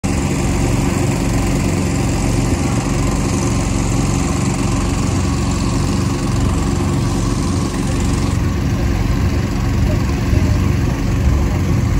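Small boat's engine running steadily at cruising speed, a low even drone, with a rushing hiss of water along the hull that drops back a little about eight seconds in.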